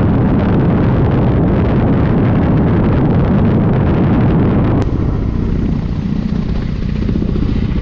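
Ka-52 attack helicopter heard from inside the cockpit in low flight: a loud, steady noise of rotor and turbines. About five seconds in it cuts abruptly to a quieter, duller helicopter noise.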